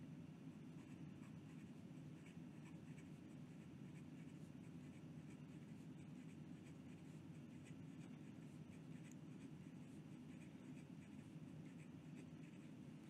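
Fine steel nib of a Moonman M800 fountain pen writing quickly on lined notebook paper: faint, irregular scratching strokes over a low steady hum. The feed keeps up with the fast writing without trouble.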